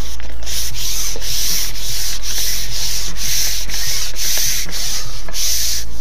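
Rhythmic rubbing, about two and a half strokes a second, stopping near the end.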